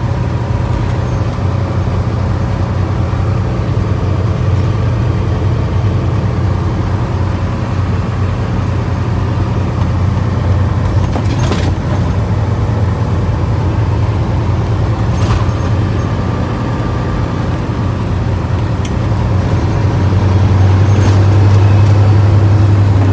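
Caterpillar C-15 ACERT diesel of a 2005 Peterbilt 379 running under load on the road, heard from inside the cab as a steady low drone. The drone grows louder about three seconds before the end.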